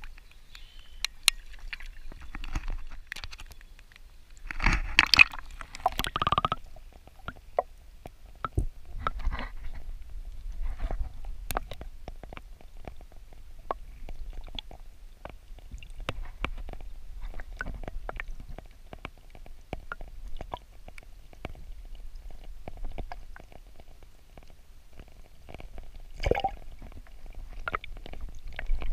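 Water heard through a camera microphone held under the surface of a pond: a muffled low rumble and gurgling, with scattered clicks and knocks. There is a louder rush of water about five seconds in, and another near the end.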